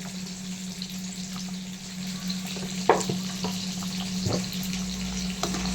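Crab pepper masala bubbling and sizzling in a kadai on the stove, with a few light knocks about halfway through.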